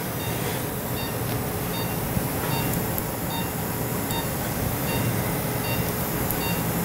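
Steady hum of operating-room equipment, with short electronic beeps repeating about twice a second.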